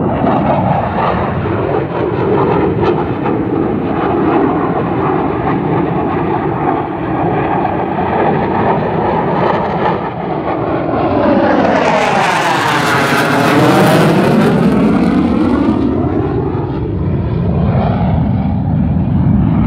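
JF-17 Thunder fighter's single Klimov RD-93 turbofan, a loud continuous jet roar as the aircraft turns overhead. About halfway through, as it passes closest, the roar turns brighter and takes on a sweeping, swirling tone, then settles back to a deeper rumble.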